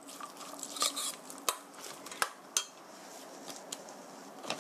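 Zucchini, chives and minced meat being mixed in a stainless steel bowl, with a few sharp metal clinks against the bowl, then quieter toward the end.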